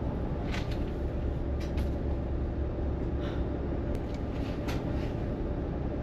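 Coach bus engine running with a steady low rumble, heard inside the passenger cabin, with a few short clicks and rattles along the way.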